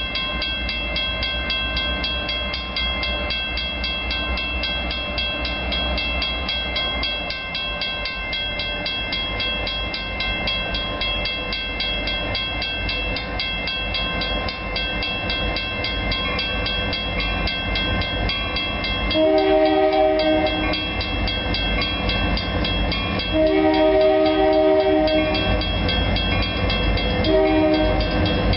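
Grade-crossing warning bell ringing steadily over the low rumble of an approaching diesel freight locomotive. About two-thirds of the way through, the locomotive's horn sounds the crossing signal: two long blasts, a short one, and the start of a final long one.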